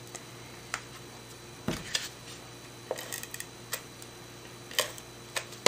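Sparse light clicks and taps, about a dozen spread unevenly, from cardstock strips being handled and pressed onto a card and a tape runner being used on them.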